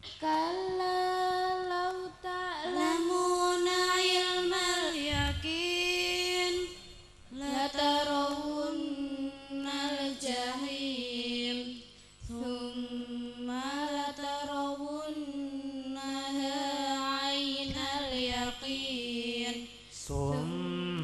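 Young female voice chanting Qur'anic recitation (tilawah) into a microphone, in long melodic phrases with drawn-out, ornamented held notes. The phrases are broken by short breath pauses.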